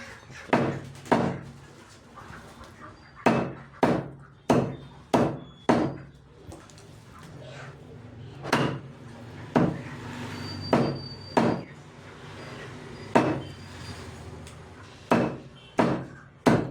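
Cleaver chopping through chicken, about fifteen sharp chops in runs of two to five, with short pauses between runs.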